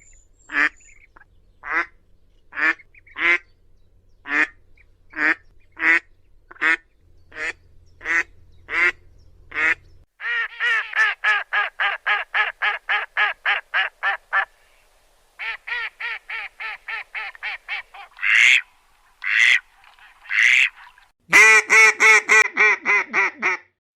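Ducks quacking: first a run of single quacks about two a second, then from about ten seconds in, fast runs of four or five quacks a second, a few louder single quacks, and a loud fast run near the end that cuts off suddenly.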